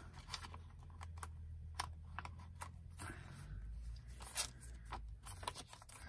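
Paper pages and tags of a handmade journal being handled and turned: scattered soft crinkles and small taps of paper over a low steady hum.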